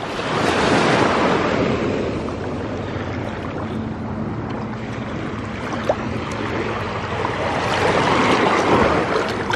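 Small surf washing in over a shell-covered shore, swelling about a second in and again, more strongly, near the end.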